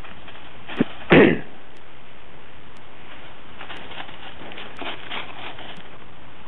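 Lurcher blowing hard breaths into a rabbit burrow. Two blows come about a second in, the second one the loudest, followed a few seconds later by a run of fainter huffs and sniffs.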